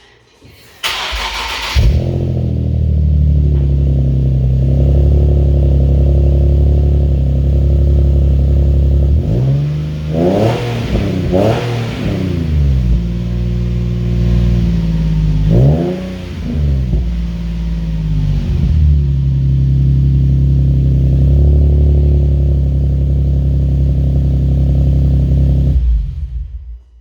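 Nissan 370Z's 3.7-litre V6 through a newly fitted aftermarket dual catback exhaust: the starter cranks about a second in and the engine catches and settles to idle. It is blipped up and back down a few times near the middle, then idles again and is switched off about a second before the end.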